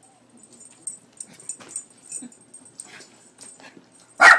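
A dog making faint, scattered small noises, then one loud bark near the end. The dog is wary of the cat picture on a cat food bag.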